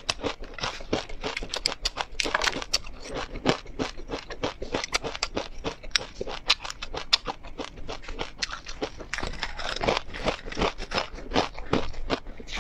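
Close-miked chewing of crisp fried perilla, flaxseed and chili crisp: rapid, irregular crunches and crackles.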